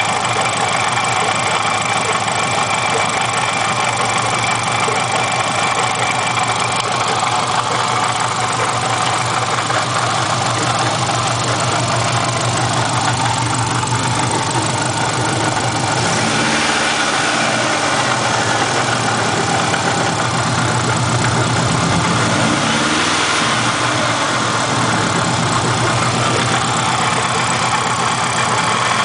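Subaru Legacy turbo engine idling with a knocking noise, blipped briefly twice past the middle. The owner leans toward something rubbing on the timing cover rather than rod knock.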